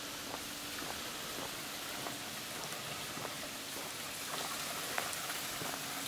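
Water pouring from a spring spout and splashing onto a drain grate, a steady rain-like patter that grows a little louder about four seconds in, with scattered steps on the paving.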